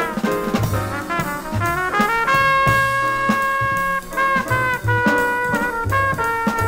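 1960s small-group jazz recording: saxophone and trumpet over piano, double bass and drum kit, with a horn holding one long note in the middle while the bass and cymbals keep time.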